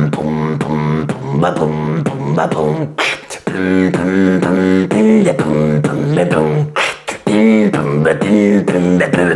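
Mouth beatboxing in throat-bass style, performed with vape vapour held in the mouth: a buzzing low vocal bass line that carries a melody, punctuated by sharp percussive clicks and snares, with brief breaks about three seconds and seven seconds in.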